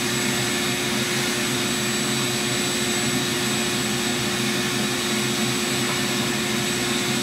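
Vacuum cleaner running steadily, a constant drone with a rushing hiss. Its hose nozzle sits in a pellet stove's firebox, drawing up the soot stirred loose by brushing.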